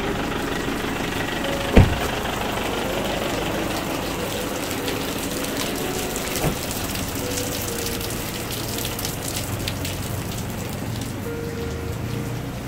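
Steady rain falling on wet, flooded paving, with a single sharp thump about two seconds in and a smaller knock later.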